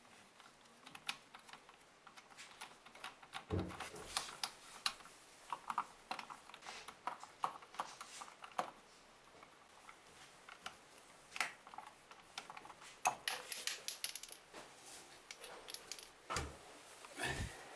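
Scattered small plastic clicks, taps and scrapes as a hand works the plastic mounting bolt of a bidet seat fixed to a ceramic toilet. A few duller knocks come about three and a half seconds in and twice near the end.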